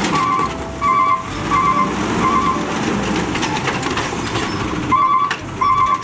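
Natural-gas automated side-loader garbage truck running while its hydraulic arm lifts a wheeled trash cart, with a low mechanical rumble throughout. A warning alarm beeps about every 0.7 s, stops for a couple of seconds mid-way, then starts again.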